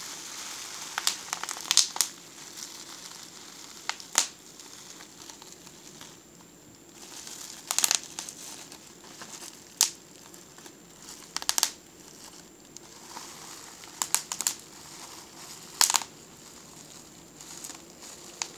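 Plastic bubble wrap crinkling as a hand squeezes and crumples it, with sharp pops of bubbles bursting every second or two, several in quick pairs.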